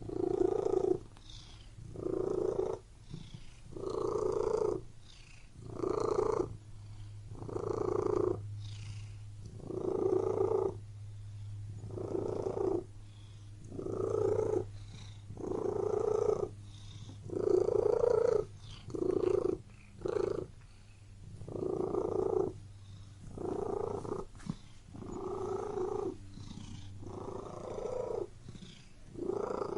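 Domestic cat purring close up, swelling loud about every two seconds with each breath and dropping quieter in between, over a faint steady low hum.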